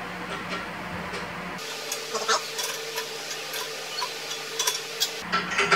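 Light, irregular metallic clicks and ticks of a small wrench working the stem clamp bolts on a balance bike's handlebar clamp.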